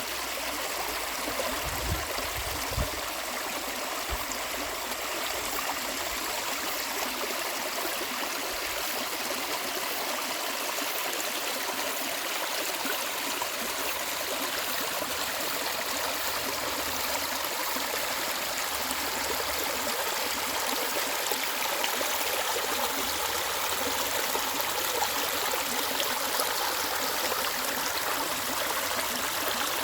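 A mountain stream running steadily over rocks, its clear water rushing and gurgling in an even flow.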